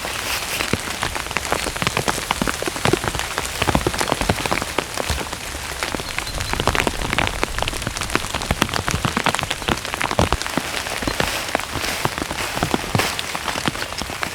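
Heavy rain falling, with a dense, irregular run of sharp ticks from close drops striking a surface.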